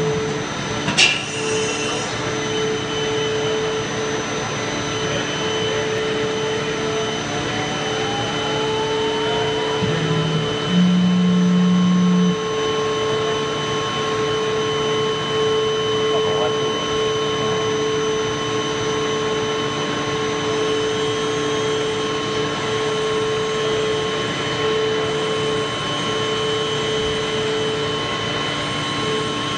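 High-frequency WT62 spindle of a dental milling machine, milling ceramic: steady machine noise with several steady tones, and a high whine that rises between about six and ten seconds in, then holds steady. A sharp click comes about a second in, and a louder low tone lasts about a second and a half around eleven seconds in.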